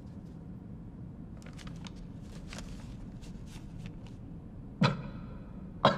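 Two loud, sharp hits about a second apart, each with a short ring, near the end. Before them there is a steady low hum and faint scattered clicks and rustling.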